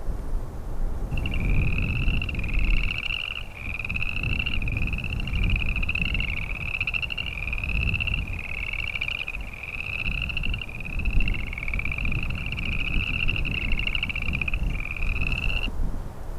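Boreal chorus frogs calling: repeated short rising, rattling trills, several frogs overlapping, starting about a second in and stopping shortly before the end. Wind rumbles low on the microphone underneath.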